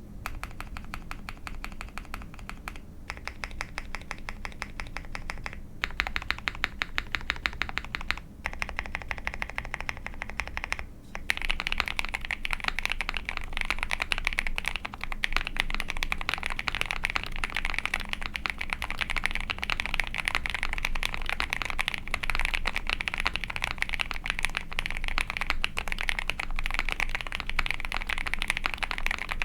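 Typing on a mechanical keyboard: an Ai03 Vega with a POM plate, Auralite linear switches lubed with Krytox 205g0, and GMK keycaps. Rapid keystrokes with a few short pauses in the first eleven seconds, then continuous faster typing.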